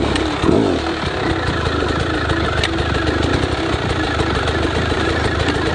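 Enduro dirt bike engine running at a fast idle with short throttle blips, the rider using them to lift the front wheel onto a log.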